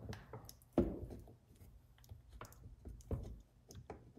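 Scattered light clicks and taps of needle-nose pliers and fingers on the chainsaw's metal and plastic parts while the spark plug wire is fitted, with one sharper knock about a second in.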